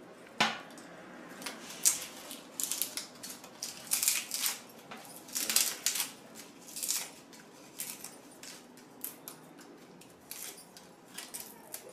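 Dry bay leaves crackling and snapping as they are broken by hand, the pieces dropping into a steel kadhai. It comes in short crisp bursts for several seconds and thins to scattered light ticks near the end, after a single sharp click about half a second in.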